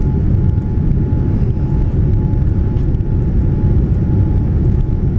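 Boeing 787-9 airliner heard from inside the economy cabin while rolling on the runway: a loud, steady low rumble of engines and airframe, with a faint steady whine above it.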